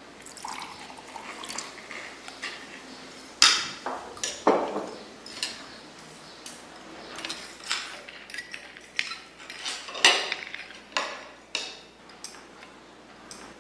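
Forks and knives clinking and scraping on dinner plates, irregular, with a few sharper, louder clinks about three and a half, four and a half and ten seconds in.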